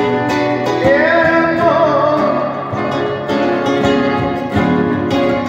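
Two acoustic guitars played together, plucked and strummed, with a man singing a long, wavering melodic line from about a second in.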